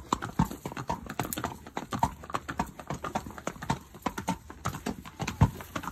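Horses' hooves clip-clopping on a cobblestone path, an uneven run of sharp knocks.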